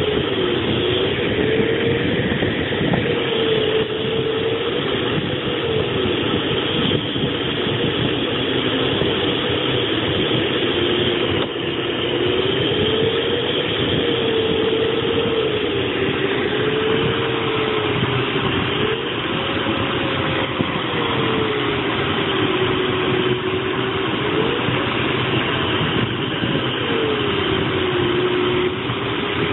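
Steady rush of air around a glider's cockpit in flight, with an audio variometer's tone sliding slowly up and down in pitch as the climb and sink rate changes.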